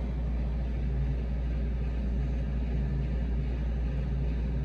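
A steady low rumble with a faint hum above it, unchanging throughout, with no separate knocks or clicks.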